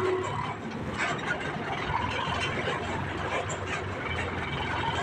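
Sonalika 745 tractor's diesel engine running steadily as the tractor drives along, heard from on board beside the driver.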